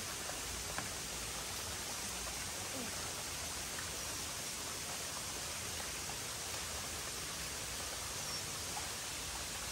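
Shallow stream of muddy water rushing over a rocky bed, a steady even rushing.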